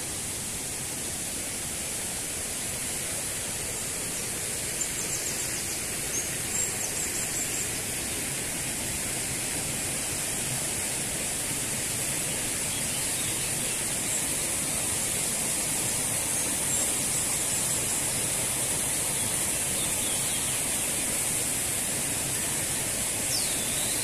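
Shallow stream running over rounded stones, a steady even rush of water with a few faint, brief high chirps now and then.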